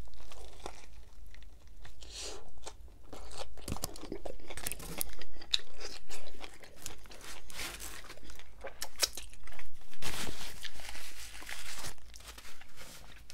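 Close-miked bite into a Subway double-meat B.M.T. on Italian herb and cheese bread, then chewing with crunches and wet mouth clicks. About ten seconds in comes a longer papery rustle as a napkin is rubbed over the hands.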